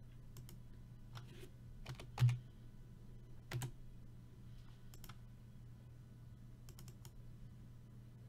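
Typing on a computer keyboard: scattered, irregular keystrokes, with two louder clicks about two and three and a half seconds in, over a low steady hum.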